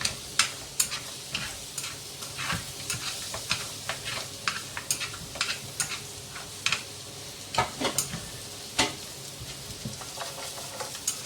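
Pieces of duck frying with a steady sizzle while a spatula stirs and tosses them, knocking against the pan in many irregular sharp clicks.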